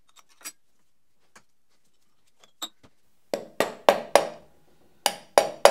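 A few light clicks of tools on a Procunier 3E tapping head. Then, about three seconds in, a rapid series of sharp metallic knocks, about three a second with one short pause, each ringing on: the tapping head's metal housing being struck.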